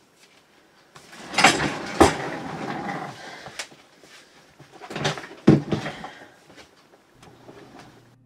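Handling and movement noises from a person: two bouts of rustling with a few sharp knocks, one about a second in and another about five seconds in.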